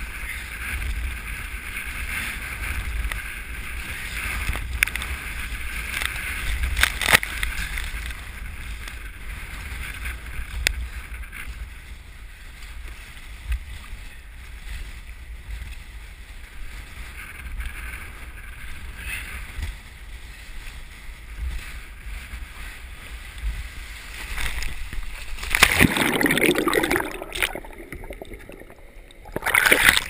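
Strong wind buffeting a head-mounted action camera's microphone, over the splash and slosh of choppy sea water around a paddled sea kayak. Near the end a loud rush of splashing, then the sound goes briefly muffled, as water washes over the camera.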